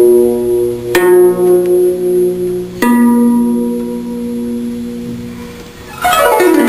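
Background music on a plucked, zither-like string instrument: single notes plucked and left to ring out, about a second in and again near three seconds, then a rapid sweep of notes near the end.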